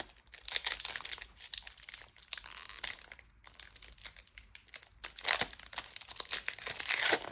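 Handling of a Pokémon booster pack: the foil wrapper crinkling and cards being flipped, in a run of small crackles and clicks that grows busier and louder near the end.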